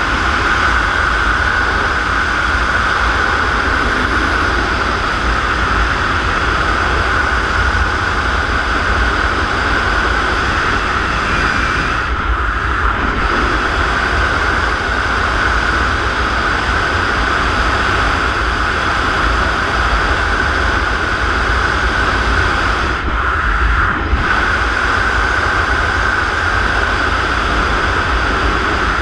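Loud, steady rush of airflow over a wingsuit flyer's camera microphone in flight, with the highest hiss briefly easing twice.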